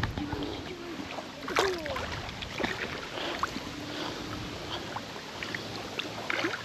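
Water splashing and slopping at the bank as a hooked carp is drawn over the landing net, with scattered small splashes and knocks.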